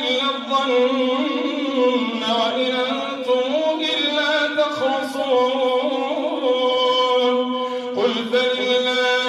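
An imam's voice chanting the Arabic prayer recitation through a microphone, in long melodic phrases with held notes; a new phrase begins about eight seconds in.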